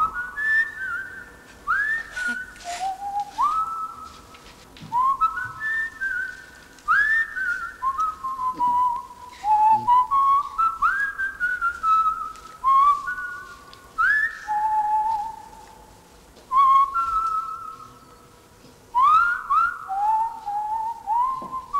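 A person whistling a slow melody, each note sliding up into its pitch, in phrases with short pauses between them.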